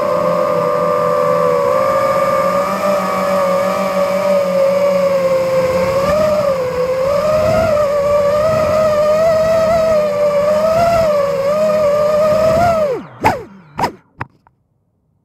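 FPV racing quadcopter's brushless motors and propellers whining steadily, heard from the camera mounted on the drone, the pitch wavering up and down with the throttle. About thirteen seconds in the pitch drops sharply as the motors spool down on landing, followed by a few short blips.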